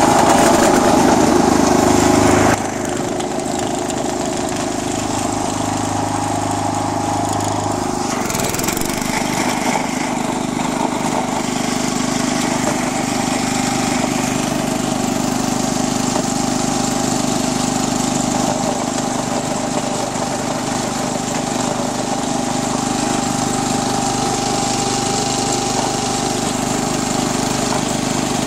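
Wheel Horse 856 garden tractor's 8 hp Kohler single-cylinder engine running steadily under load as the front blade pushes snow. The engine note drops and gets quieter about two and a half seconds in, and shifts again about eight seconds in.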